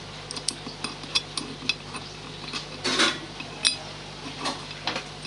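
Small metal clicks and clinks of a steel hex key tapping and turning against aluminium shaft-support blocks and their base plate: a dozen or so irregular sharp ticks, with a louder, longer scrape about three seconds in. A steady low hum sits underneath.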